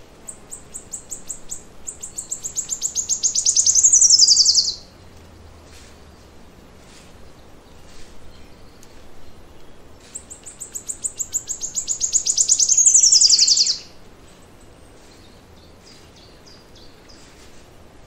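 A forest songbird sings two songs about ten seconds apart. Each is a fast, quickening run of high notes that grows louder and ends in a falling flourish. Fainter chirps from other birds come in between.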